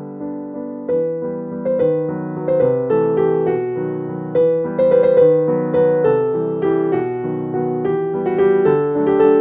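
Background piano music: a gentle melody of struck notes in a flowing rhythm, growing a little louder after the first second.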